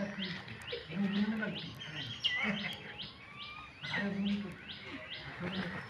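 Birds calling: a sharp high note repeated about three times a second, with other chirps mixed in. Low voice-like sounds come and go beneath them.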